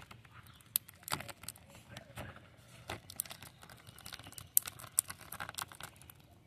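Black repair tape on a polyethylene kayak hull crinkling and crackling as a hand grips and pulls at it: a run of irregular sharp crackles and clicks.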